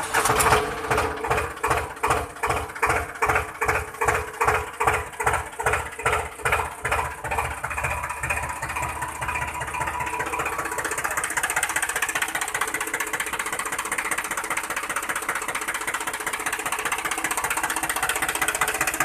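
Small motor of a homemade model tractor running, pulsing about three times a second at first, then settling into an even buzz as the tractor pulls its trailer.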